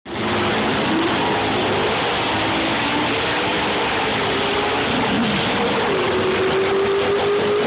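Chevrolet Nova drag car's 396 big-block V8 running loud at high revs, its pitch wavering and then climbing slowly near the end.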